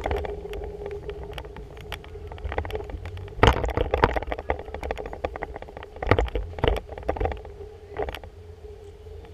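Rumble, rubbing and knocks of an action camera being carried by hand or on the body, with a steady hum underneath and sharper thumps a few times, the loudest about three and a half seconds in.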